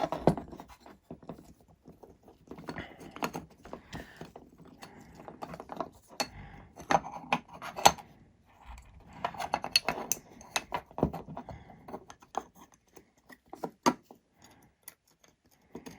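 Hand work on drone frame parts: irregular clicks, taps and small rattles of hardware and tools being handled and fitted together, in clusters with short gaps.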